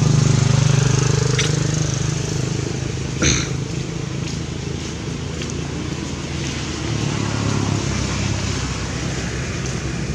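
A motor engine running steadily, loudest in the first couple of seconds and then fainter. About three seconds in comes a short, sharp high-pitched sound.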